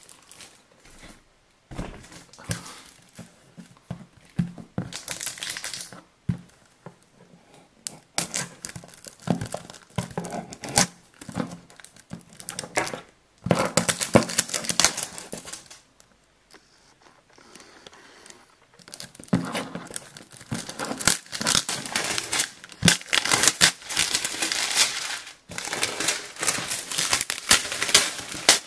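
Clear plastic wrap crinkling and tearing as it is peeled off a cardboard box. The crackling comes in irregular spells, with two quieter pauses.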